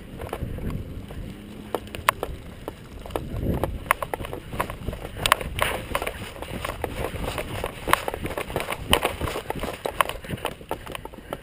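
Footsteps on dry dirt and gear knocking as a player moves along at a walk or jog, an irregular run of clicks and thumps that grows busier about four seconds in.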